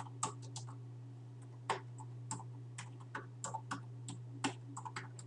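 Typing on a computer keyboard: a dozen or more irregular keystroke clicks, over a steady low hum.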